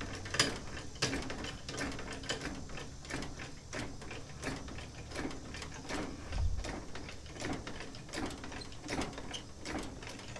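Hydraulic floor jack being pumped by its handle, a run of metallic clicks and creaks with each stroke as it lifts a riding mower.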